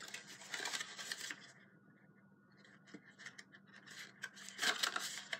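Card stock rustling and scraping as a small paper box is folded and its glued sides are pressed together by hand. It comes in two spells, with a quieter pause and a single light click in between.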